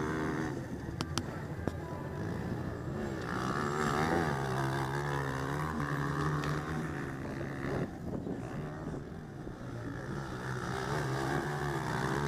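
230 cc four-stroke motocross bikes racing on a dirt track, their engines revving up and down through the corners and gear changes, the pitch rising and falling throughout.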